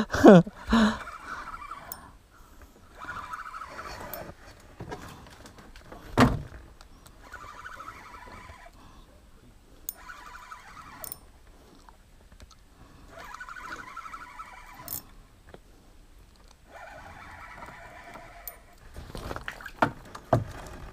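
Spinning reel being cranked in short bursts of a second or two, several times over, its gears whirring as line is wound in. A single thump about six seconds in.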